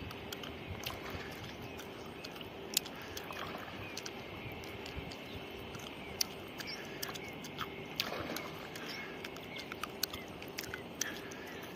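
Outdoor ambience: a steady, slightly pulsing hum with faint high chirps, broken by many scattered sharp clicks and ticks.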